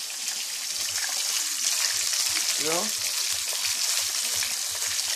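Pork chop frying in hot grease in a pan: a steady sizzling hiss that swells in the middle.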